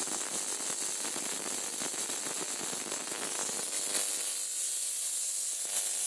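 High-voltage arc from an oil-immersed X-ray transformer, fed at 40 volts from a variac through a ballast, crackling and hissing steadily. The lower part of the sound drops away about four seconds in while the high hiss goes on.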